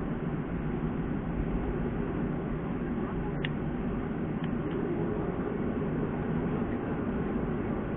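Steady cabin noise of a Boeing 737-300's CFM56-3 engines running at taxi power as the jet turns onto the runway, with a couple of faint ticks about halfway through.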